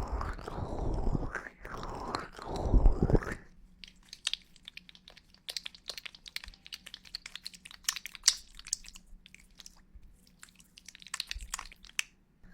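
Close-miked ASMR sounds: about three seconds of dense rubbing and scratching right at the microphone, then a long run of scattered, crisp clicks.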